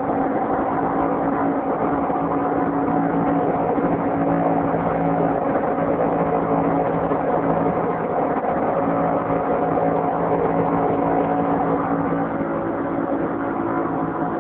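Twin 75 hp Yamaha outboard motors driving a speedboat at a steady cruise below full throttle: an even engine drone mixed with the rush of water and wake against the hull.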